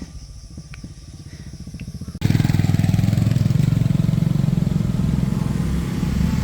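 A motor vehicle engine running close by. A low, steady, pulsing rumble jumps abruptly much louder about two seconds in.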